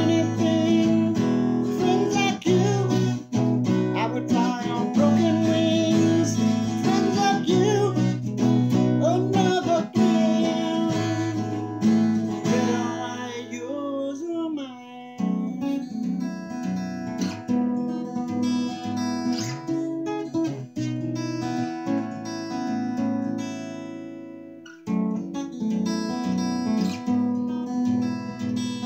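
Acoustic guitar strummed and picked, with a man singing over it for about the first half; then the guitar plays on alone, fading briefly near the end before picking up again.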